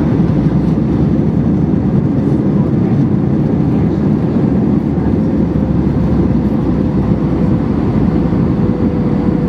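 Steady cabin roar of an Airbus A320-232 in flight on approach, heard from a passenger seat: a low, even rush of engine and airflow noise with a faint steady whine running through it.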